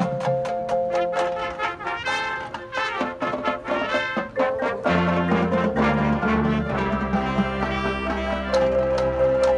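Marching band playing: the brass section holds sustained chords over steady percussion ticks, and the low brass comes in strongly about halfway.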